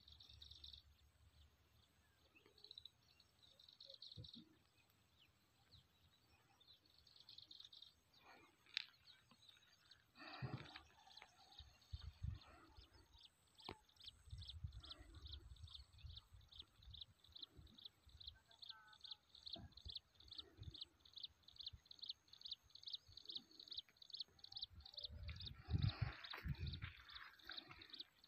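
Faint outdoor field ambience: a long, even run of short high chirps, about three a second, starting roughly halfway through, with a few low rumbles near the middle and near the end.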